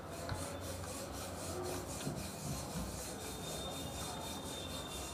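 Wooden rolling pin rolling a flour-dusted stuffed paratha on a wooden board, making a quick, even rhythm of rubbing strokes.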